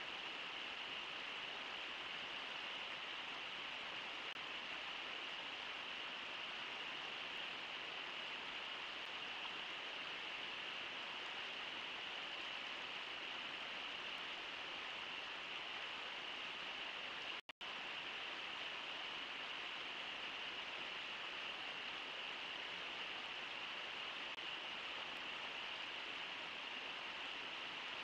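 Steady rush of flowing river water, an even hiss with no distinct events, cutting out for an instant about two-thirds of the way through.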